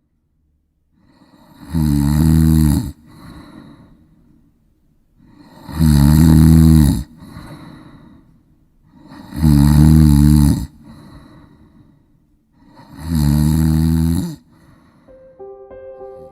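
A person snoring: four loud snores about four seconds apart, each followed by a quieter breath.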